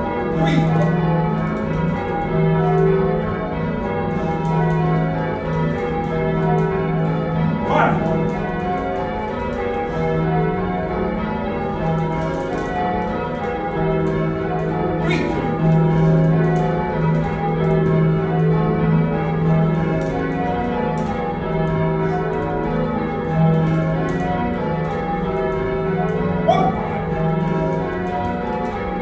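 A heavy ring of six church bells cast by John Taylor & Co in 1925, tenor about 19 cwt in E-flat, being rung full circle in change ringing, heard from the ringing chamber. The bells strike one after another in a continuous overlapping pattern, with a few sharp clicks along the way.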